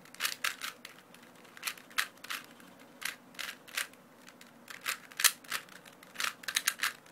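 Rubik's Cube's plastic layers being turned quickly by hand during a speedsolve: irregular runs of sharp clicks as the faces snap round, with brief pauses between turn sequences.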